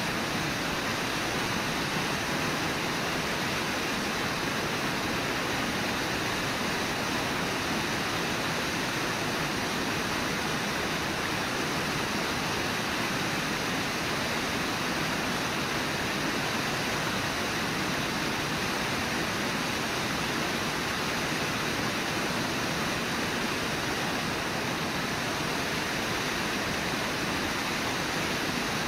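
Steady rushing of river water, an even hiss with no separate splashes or calls.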